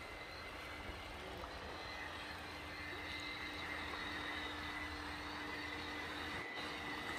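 Radio-controlled Hobby Engine Southampton model tug running on the water, its electric drive giving a thin, steady whine that grows a little stronger about halfway through as the boat comes closer, over a low steady rumble.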